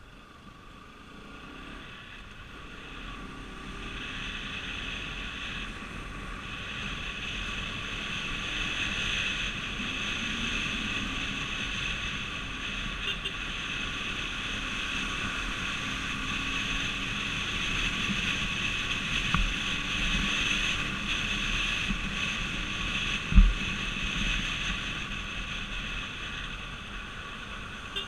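Vehicle travelling at highway speed: a steady rush of road and wind noise with a steady whine in it, growing louder over the first several seconds and then holding. A brief low thump about 23 seconds in is the loudest moment.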